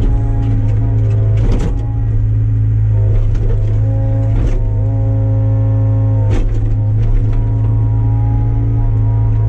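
Mini excavator's engine running steadily under load, heard from inside the cab, with steady tones that shift in pitch a few times as the boom and bucket are worked. Three sharp knocks come through as the bucket digs at stumps.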